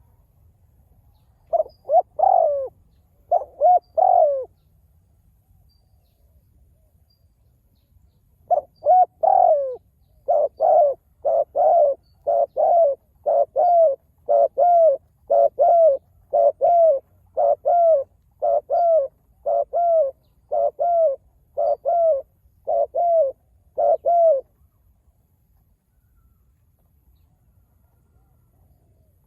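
Spotted dove cooing: a short phrase of coos, then after a pause a long run of evenly repeated coo notes, a little under one a second, which stops near the end.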